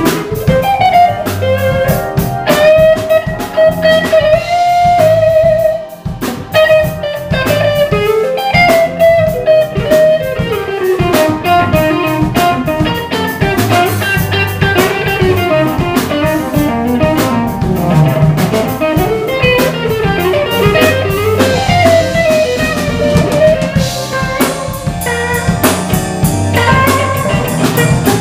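Live blues band playing an instrumental passage: an electric guitar lead with bent, sliding notes over electric bass and a drum kit.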